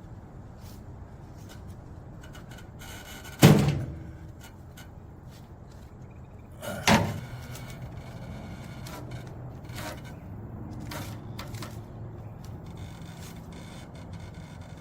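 Steel rebar clanking as it is handled and bent: two loud knocks about three and a half seconds apart, with lighter clicks and rattles in between.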